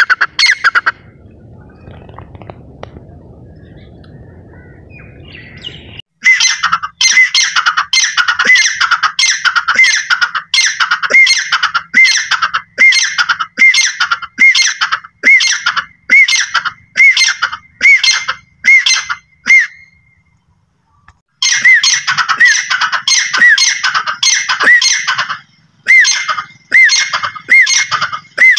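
Grey francolin calling: loud, shrill calls repeated about one and a half times a second in long runs, pausing for about a second some twenty seconds in. For about five seconds near the start the calls stop and only a low rumble is heard.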